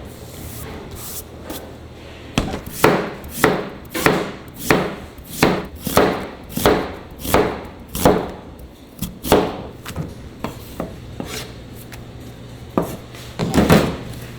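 Knife chopping on a cutting board: about a dozen even chops at roughly one and a half a second, a pause, then a few more chops near the end.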